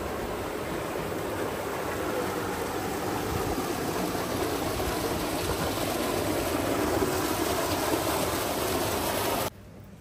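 Sea surf washing onto a beach, a steady rushing that swells slightly and cuts off suddenly near the end.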